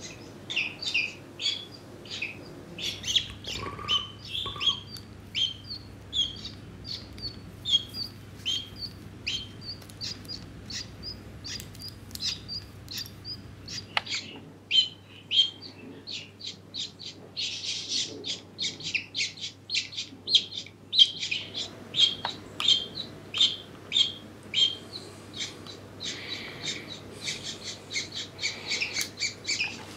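A hatching duckling peeping from inside its partly opened egg: a stream of short, high peeps a few times a second, coming thickest just past the middle and again near the end.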